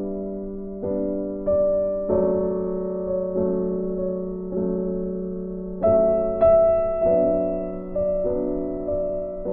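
Background music: a slow, gentle piano melody, notes struck about once a second and left to ring and fade.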